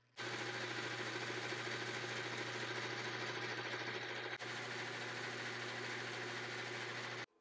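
Metal lathe running steadily while a tool bit turns down a steel shaft. The sound starts and cuts off abruptly.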